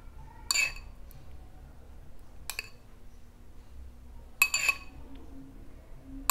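Steel spoon clinking against a glass bowl as curd is scooped out, a short ringing clink about every two seconds, with a quick double clink about four and a half seconds in.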